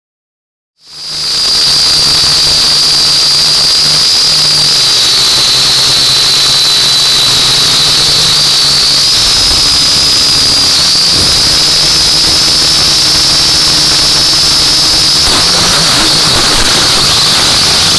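Quadcopter drone's motors and propellers whining, recorded on the drone itself: a loud, steady high-pitched whine that wavers slightly in pitch as the throttle changes, starting just under a second in, with a rougher rush of noise in the last couple of seconds.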